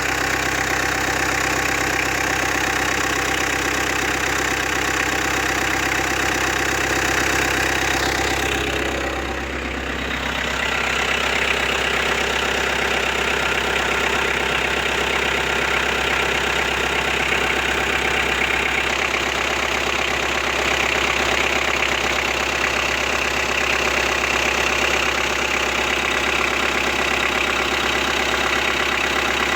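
Citroen Berlingo's 1.9 DW8 diesel engine idling steadily with its freshly refitted accessory drive belt, run to check for belt squeal. About nine seconds in the sound dips briefly and falls in pitch, then settles back to an even idle.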